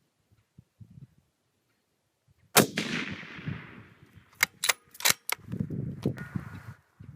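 A single 6mm Creedmoor rifle shot through a muzzle brake, about two and a half seconds in, its report echoing away over the next second. A quick series of sharp clicks follows as the bolt is worked to chamber the next round.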